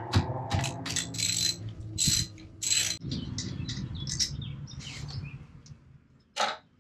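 Socket ratchet clicking in irregular runs as a caliper bolt is worked out, the clicks thinning out after about three seconds, with one sharp metallic click near the end.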